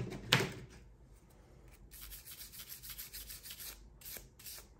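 Glock 43X pistol parts being scrubbed clean to prepare the metal surfaces for lubrication: a light click just after the start, then a run of faint, short rubbing strokes from about two seconds in.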